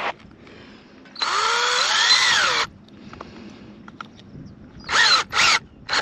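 Cordless drill driving screws through a plastic camera mount into a wooden post: a brief blip, then one long run of about a second and a half whose pitch rises and then falls, then two short bursts near the end.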